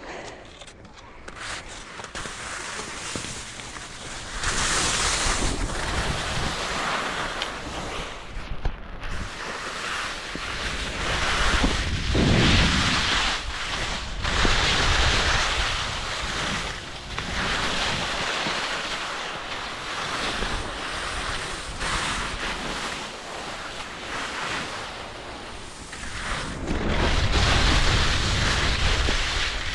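Skis hissing and scraping over snow in surges that rise and fall with the turns, with wind rushing over the microphone.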